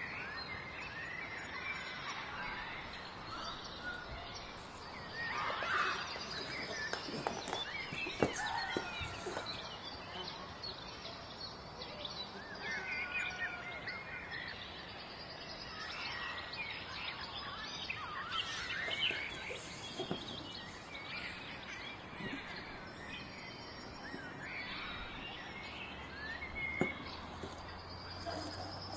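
Birds chirping repeatedly in the background, with a few light taps and rubs from a cardboard box being handled and opened.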